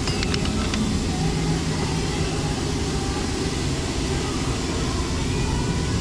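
Steady low mechanical hum throughout, with a few light metallic clicks in the first second as small bolts are worked by hand.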